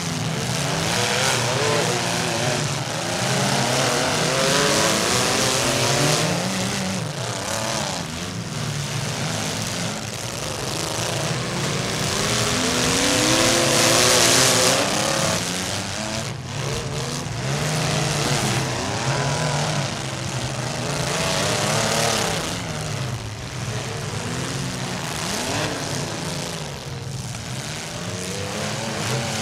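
Several compact demolition derby cars' engines running and revving together, pitch rising and falling as they push against one another, loudest about halfway through.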